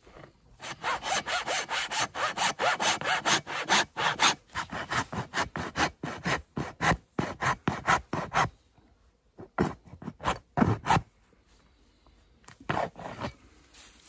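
Hacksaw cutting through the hard shell of a green calabash gourd in quick back-and-forth strokes, about four or five a second. After about eight seconds the sawing breaks off into a few scattered short strokes.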